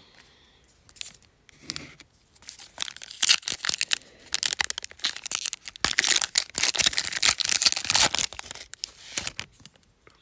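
Foil wrapper of an NBA Hoops Premium Stock trading-card pack crinkling and tearing as it is ripped open by hand. After a few faint rustles, a dense run of crackling starts about two and a half seconds in and goes on until near the end.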